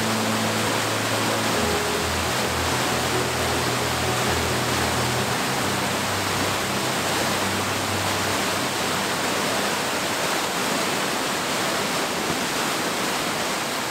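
A steady, loud rushing outdoor noise, with soft music fading out over the first half.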